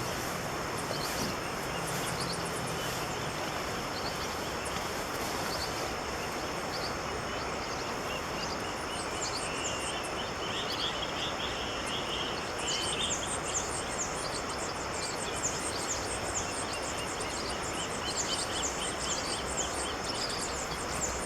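Birds chirping over a steady background hiss and a continuous high-pitched tone; the chirping grows much busier about halfway through.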